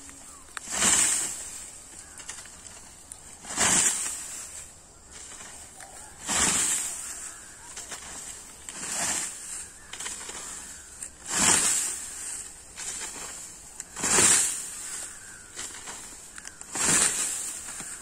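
Scythe strokes cutting through standing rice stalks: seven brief swishes, one about every two and a half seconds.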